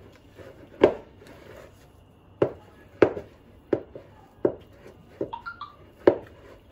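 Soft, sticky yeast dough kneaded by hand in a large bowl: about ten irregular slaps and squelches as the hands press and fold it.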